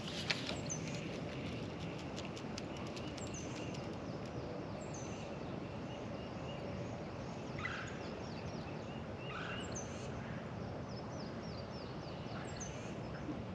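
Birds calling in the background: scattered short high chirps that drop in pitch, and two lower calls near the middle, over a steady outdoor hiss. A quick run of faint light clicks comes in the first two seconds.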